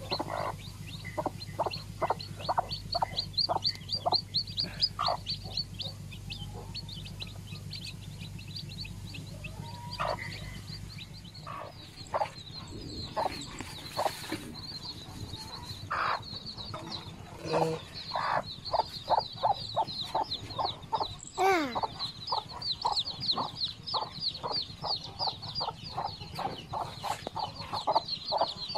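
A mother hen clucking in quick, evenly spaced series while her chicks peep constantly in high, rapid chirps. One longer call rises and falls about two-thirds of the way through.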